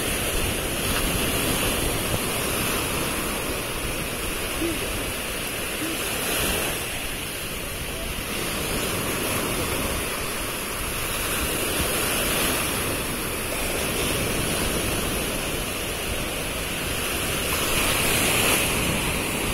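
Sea surf washing onto a beach: a steady rushing that swells a little as waves break.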